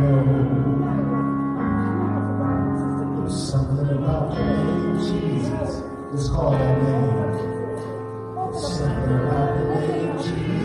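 A man singing a slow gospel song into a microphone over long held keyboard chords.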